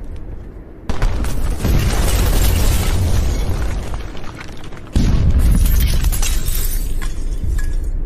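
Two cinematic explosion sound effects: a sudden blast about a second in and a second one about five seconds in, each a deep boom that dies away over a few seconds.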